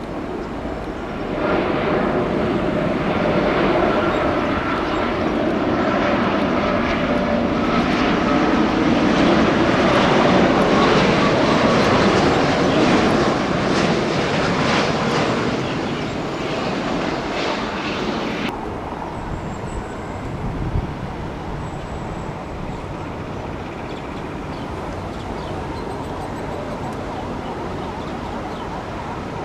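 Arriving Boeing 787-8 airliner's jet engines, Rolls-Royce Trent 1000s, swelling to a loud, steady rush with a hum through it. The noise peaks midway, eases off, then gives way abruptly to quieter outdoor background.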